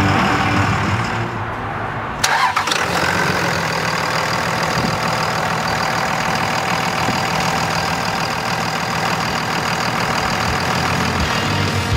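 The truck's 5.9L 24-valve Cummins inline-six turbo diesel starts about two seconds in, then idles steadily.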